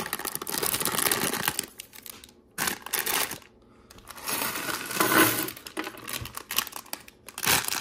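Clear plastic bags of Lego Technic parts crinkling as they are handled, with the small plastic pieces inside clicking together. It comes in bursts, with two short pauses.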